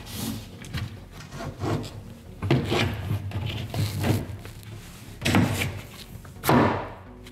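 Kitchen cabinet plinth board being refitted under the cabinets: it scrapes and knocks against the cabinet base and floor in a handful of separate rubbing knocks as it is pushed into place.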